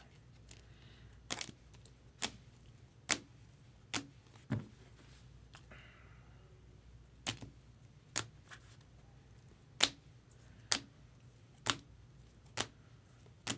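Baseball cards being handled and set down on a table: a string of sharp clicks, roughly one a second, with a pause of a few seconds midway.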